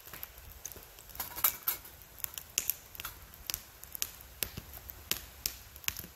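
Fatwood fire crackling in a small folding metal twig stove: sharp, irregular pops and clicks, a few each second.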